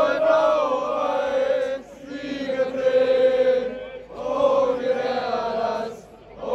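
A large crowd of football supporters chanting in unison, a sung chant in drawn-out phrases of about two seconds each with short breaks between them.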